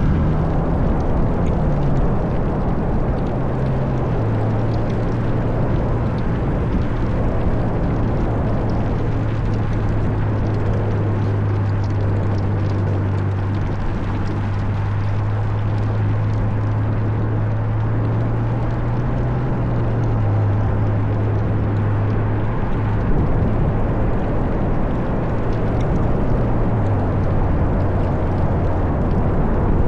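Ferrari GTC4Lusso's V12 engine through a Capristo aftermarket exhaust, running steadily as the car drives. Its pitch drops a couple of seconds in, rises briefly past the middle and drops again near the end, over wind and road noise.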